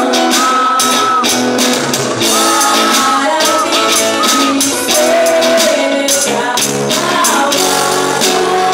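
Congregational worship song: a woman leads the singing with other voices joining, over a strummed small guitar and steady, regular percussion.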